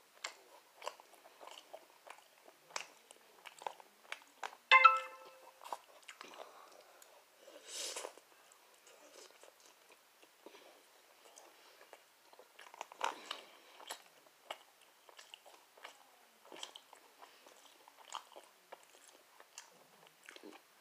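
A person chewing and biting food close to the microphone, with scattered small wet mouth clicks throughout. About five seconds in there is a brief, loud pitched note.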